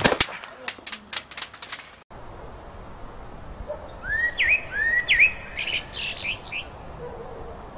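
Crackling clicks for about two seconds, then a playground swing squeaking as it swings: two pairs of short rising squeaks, followed by a few light clicks.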